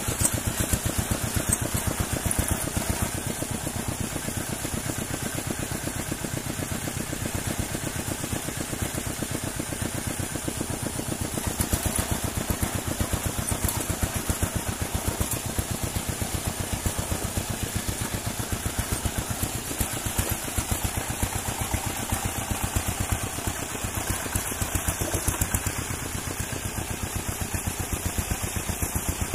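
An engine running steadily, a rapid even train of pulses.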